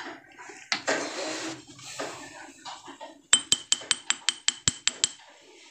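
About ten quick, ringing metal-on-metal taps, roughly five a second, start a little past the middle: a tool tapping the cover of a worm-type steering gearbox to seat it evenly over its seal. Faint handling noises come before them.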